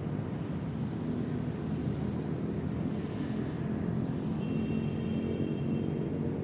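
Train running slowly past, a steady low rumble. A faint high-pitched tone joins in about four and a half seconds in and stops about a second and a half later.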